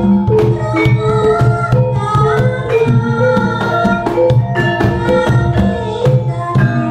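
Javanese gamelan ensemble playing in a steady rhythm: kendang hand-drum strokes over ringing bronze metallophones and kettle gongs.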